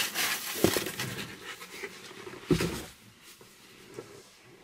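Rustling and handling noise of items and packaging being moved about, with a short knock about half a second in and a dull bump about two and a half seconds in.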